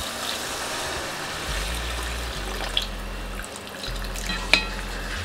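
Tamarind water being poured into a kadai of hot tomato-chilli masala, which sizzles with a steady frying hiss. A wooden spoon stirs, with one sharp knock about four and a half seconds in.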